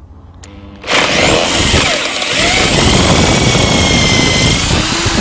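Power drill with a 5.5 mm bit boring into the head of a seized door-hinge fixing on a Land Rover Defender, starting suddenly about a second in and running hard with a steady whine. Near the end the whine climbs, then winds down as the drill is let off.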